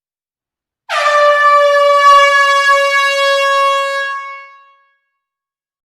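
Air horn sounding one long, steady blast of nearly four seconds that fades away at the end.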